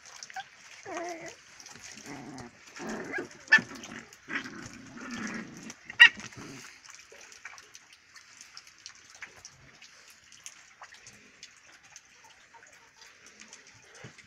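Young puppies whimpering and yipping in short calls over the first six or seven seconds. Two sharp knocks stand out, about three and a half and six seconds in. After that there are only faint scratchy ticks.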